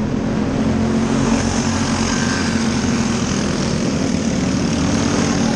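Engines of several small open-wheel dirt-track race cars running on the track, a steady drone.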